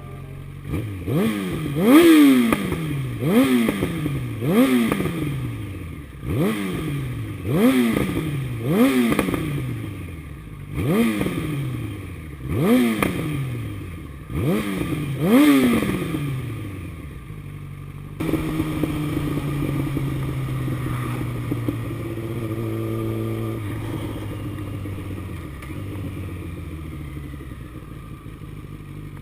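A 2007 Yamaha FZ1's inline-four engine blipped about eleven times in quick succession, each rev rising sharply and dying away, then running steadily after a cut near the middle.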